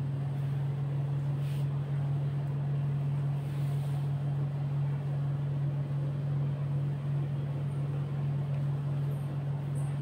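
A steady low machine hum that does not change, with a constant airy noise over it.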